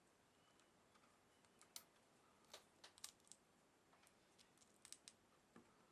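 Faint, irregular small clicks and taps of a tool and tiny carburettor parts being handled, working at the little fuel filter screen in a Walbro chainsaw carburettor.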